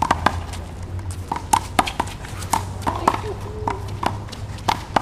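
A one-wall handball rally: a dozen or so sharp slaps and smacks, irregularly spaced, as the rubber ball is struck by hand and hits the wall and the concrete, mixed with footsteps scuffing on the court.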